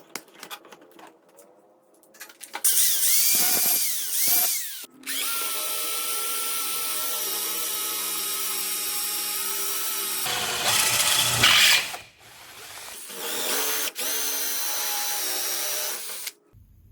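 Electric drill running in several spells, with a few clicks at the start. The motor whine speeds up and slows down, holds a long steady pitch, gets louder and rougher for a moment about ten seconds in, then runs steady again and stops shortly before the end.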